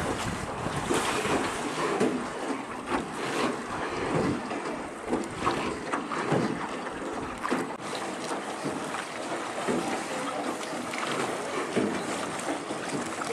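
Water lapping and splashing around a small rowed boat moving along the river, with irregular splashes from the oar strokes. Wind buffets the microphone.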